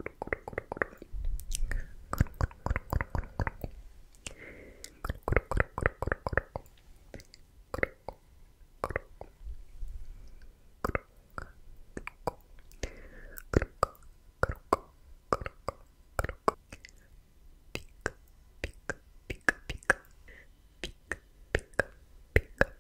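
Close-miked ASMR mouth sounds: wet tongue clicks and pops with soft whispered syllables such as "tk tk" and "sk". They come in quick runs in the first several seconds, then as slower single clicks.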